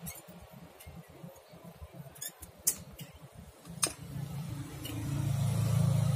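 Scattered sharp clicks and taps of small parts being handled on a work mat, the two loudest about two and a half and four seconds in. From about four seconds a low rumble swells and is loudest near the end.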